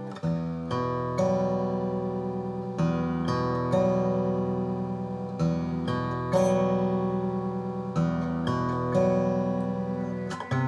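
Background music: acoustic guitar, chords struck and left to ring, a new chord every second or so.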